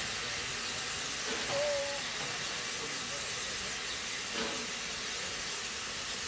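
A 1927 steam locomotive hissing steadily as steam escapes. It is an even, high-pitched hiss with no clear chuffing beats.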